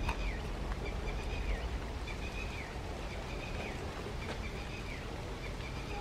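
Low rumble of a diesel-hauled express train rolling away into the distance. A bird calls over it about once a second, each high call holding its pitch and then dropping.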